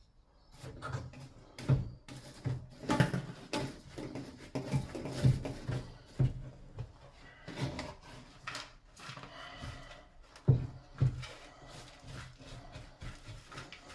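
Irregular knocks, thuds and scraping of hands-on repair work, likely wooden skirt board being handled; about a dozen sharp knocks, the loudest near the start and about two thirds of the way through, in a small room.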